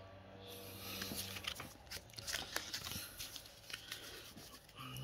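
Pokémon trading cards and a foil booster pack being handled: a string of light, irregular crinkles and ticks.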